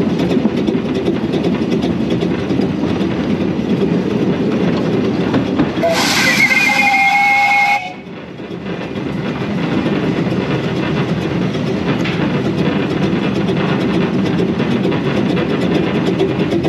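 Narrow-gauge Hunslet steam locomotive No 827 "Sybil" running, heard from on the engine, with its exhaust and wheels on the rails. About six seconds in it gives a two-second blast on its steam whistle that cuts off sharply. The running sound then dips briefly and builds again.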